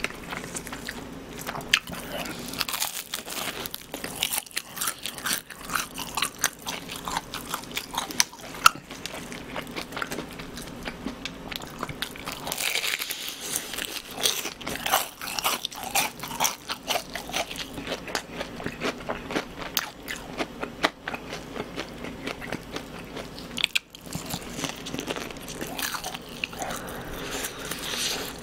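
Close-miked crunching and chewing of crispy fried chicken, with many crisp crackles of the batter as it is bitten and chewed.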